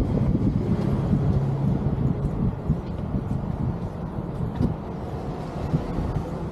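Low engine rumble of a passing road vehicle, slowly fading.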